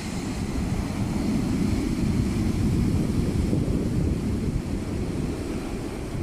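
Large sea waves breaking on the shore, heard under heavy wind buffeting on the microphone, mostly a steady low rumble.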